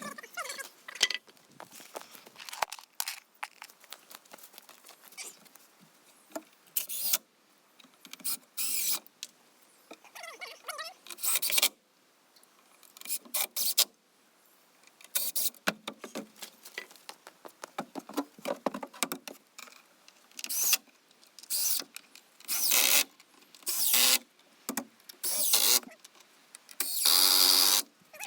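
Power drill driving screws into wood in a series of short bursts, the last and longest about a second before the end. Small clicks and knocks of handling come between the bursts.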